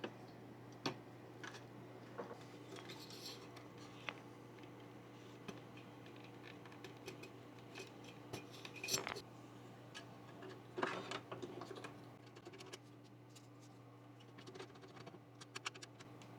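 Scattered small clicks and light clinks of computer parts and small tools being handled while a motherboard is assembled, with two busier clusters of clatter about nine and eleven seconds in, over a steady low hum.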